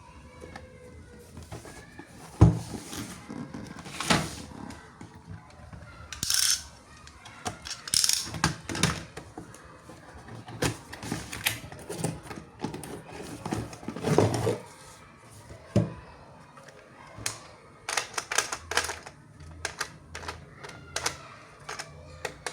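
Irregular plastic clicks, knocks and crinkling, typical of toy packaging being opened and plastic toy parts being handled.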